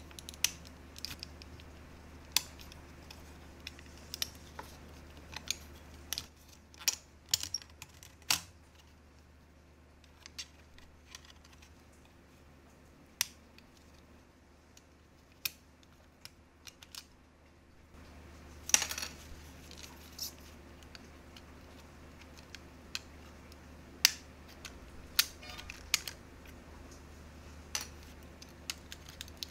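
Irregular small clicks and taps of hard plastic parts inside a Microsoft IntelliMouse Optical shell as they are pried and lifted out with metal tweezers, with a brief scraping rattle about two-thirds of the way through.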